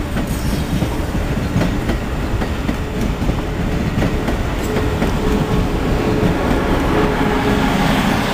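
Amtrak Acela Express electric trainset rolling past: a steady rumble and rush of wheels on rail, with faint clickety-clack. A faint steady tone comes in for a couple of seconds mid-way, and the sound builds slightly near the end.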